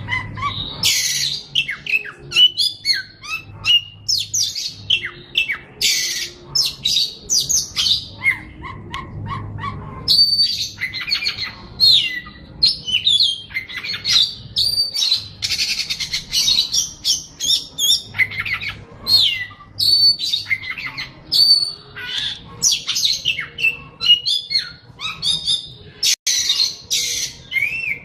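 A songbird singing a long, varied song without pause: rapid chirps, clear whistles, quick up-and-down sweeps and trills.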